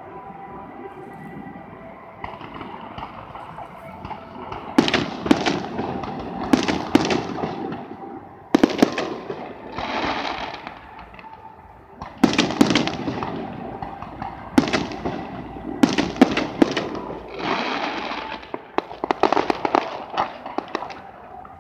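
Aerial fireworks display: after a few quieter seconds, shells start going off about five seconds in, a rapid series of sharp bangs, each with a crackling tail, repeating in clusters every second or two.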